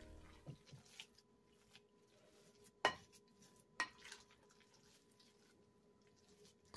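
Spatula knocking and scraping in a glass mixing bowl while meatloaf mixture is stirred: a few faint taps, the loudest nearly three seconds in and another about a second later, with near silence between.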